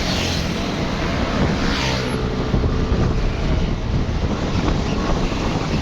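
Road traffic in a slow jam: vehicle engines running under heavy wind buffeting on the microphone, with two brief hissing swells, one near the start and one about two seconds in.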